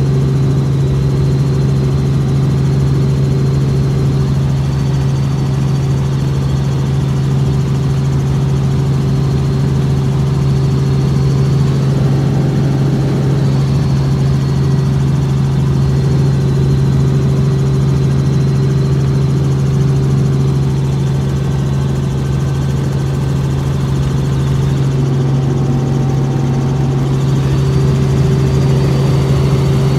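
Helicopter's engine and rotors running steadily in flight, heard from inside the cabin as a loud, even low hum.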